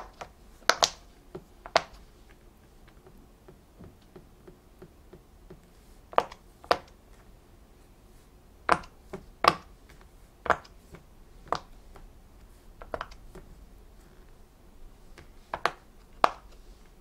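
Silicone bubbles of a Go Pop fidget popping toy pressed through by fingertip one at a time, each giving a short, sharp pop. About a dozen pops come at irregular intervals, some in quick pairs and some several seconds apart, as players take turns.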